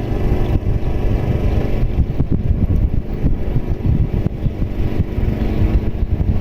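Engine of a motorised sampan running, opening up sharply at the start and then holding steady with a low, uneven throb.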